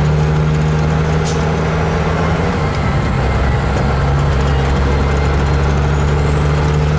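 Kenworth truck's diesel engine running under way with road noise, heard from inside the cab. The engine note fades briefly a little before halfway and then comes back.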